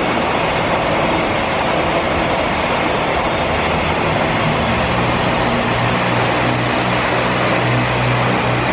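A freight train hauled by a JR Freight EF210 electric locomotive passing close by: a loud, steady running noise of wheels on rails. A low steady hum joins about halfway through.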